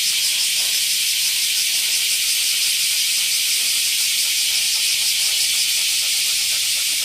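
Summer insect chorus, most likely cicadas: a steady, high hiss with a fine, even pulsing texture.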